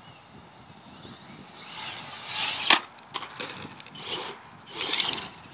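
Traxxas Mini E-Revo electric RC truck: its motor whines up in pitch, then a sharp crack of an impact about two and a half seconds in, the loudest sound. Near the end come two rushes of tyres spinning and spraying loose dirt.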